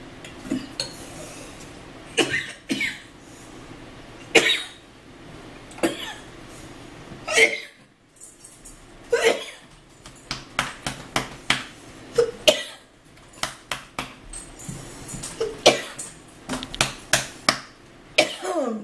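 A person coughing in short single coughs spread out over the stretch, with small clicks of a cup and utensils, including a quick run of clicks near the end.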